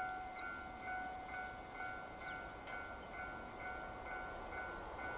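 A Japanese railway level-crossing alarm starts ringing all at once: an electronic clanging tone repeating evenly about twice a second, warning that a train is approaching. A few short, falling bird chirps sound over it.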